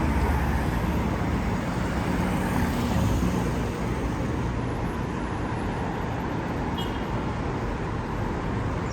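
Road traffic: a vehicle's engine rumble close by for the first few seconds, easing off, over a steady wash of traffic noise.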